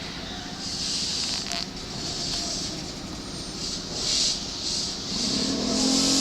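Electric commuter train running at a station platform: a hissing rush that swells and fades several times, with a low motor tone coming in and rising slightly near the end.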